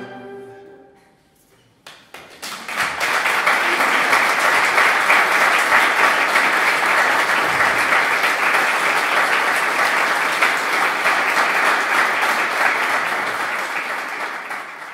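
The last chord of a mandolin quartet (mandolins, mandola and liuto cantabile) rings and dies away. About two seconds in, an audience breaks into steady applause, which tapers near the end.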